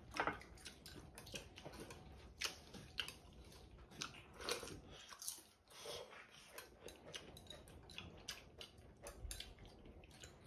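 Quiet eating sounds: chewing and sipping soup from a small bowl, with scattered light clicks of chopsticks against the bowl.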